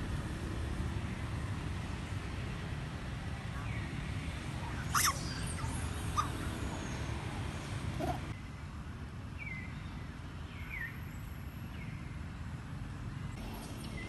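A steady low rumble with a few short, high animal calls over it: scattered chirps and squeaks, the loudest a sharp squeal about five seconds in.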